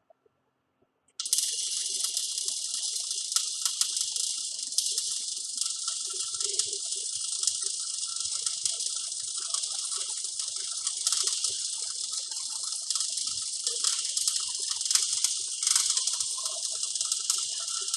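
MIG welder arc struck about a second in, then a steady crackling hiss as the weld is run.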